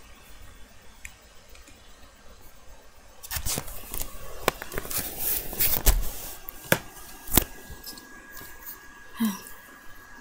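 Handling noise as a webcam and small plastic toys are moved about on carpet: a run of clicks, knocks and rustles starting about three seconds in, then a brief vocal sound near the end.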